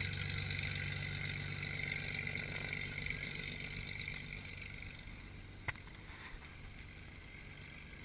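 Beechcraft Bonanza's piston engine and propeller running steadily at taxi power, a low drone that fades as the plane moves away. A single sharp click about five and a half seconds in.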